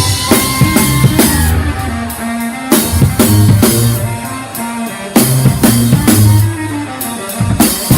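Brass band playing live, with a drum kit keeping a steady beat of bass drum and snare strikes under sustained horn notes and a low bass line.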